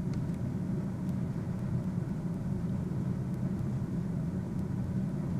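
Steady low rumbling hum with no change in level.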